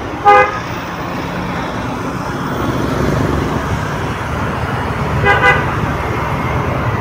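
Short vehicle horn toots in street traffic: one loud toot just after the start and another, in two quick beeps, a little past five seconds in, over a steady drone of traffic and engines.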